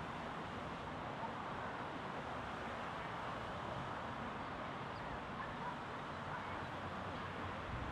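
Steady outdoor park ambience by a lake: an even wash of background noise, with faint bird chirps and distant voices.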